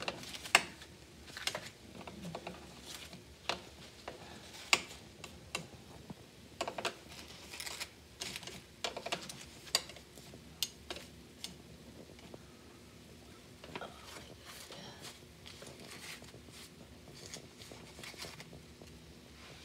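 Irregular sharp clicks and light taps from banana-leaf-wrapped tupig being turned over on a metal oven tray, busiest in the first twelve seconds, then sparser.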